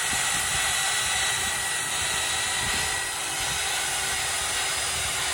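Magnetic drill running steadily as its 40 mm annular core cutter bores through a steel girder, lubricated with oil. It makes a steady hiss with a thin high tone.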